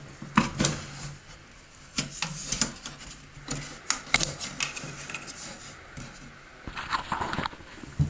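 Plastic clicks, knocks and rubbing as the face panel of a ceiling bathroom ventilation fan is pried off its clips and swung down open. The scraping is loudest about seven seconds in.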